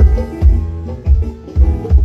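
Live band playing, with heavy bass-drum and bass hits under sustained instrument notes.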